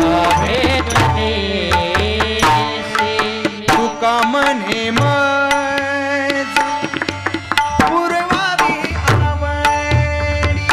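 Marathi devotional bhajan music: tabla and mridang drumming a steady rhythm together, under singing voices and held melody notes.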